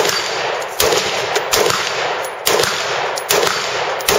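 AR-style rifle firing about six shots at a steady pace, a little under a second apart, each shot trailing off in a long echo.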